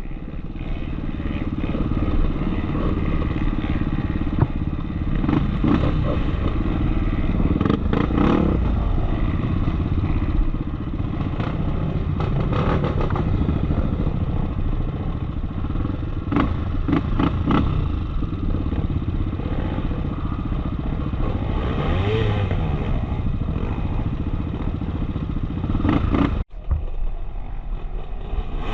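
Off-road motorcycle engine running steadily while riding, with frequent short knocks and rattles throughout. The sound drops out for an instant about 26 seconds in.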